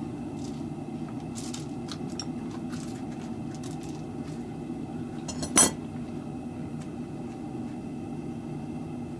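Light metallic clinks and taps of metal objects being handled, with one sharp, loud clink about five and a half seconds in, over a steady low hum.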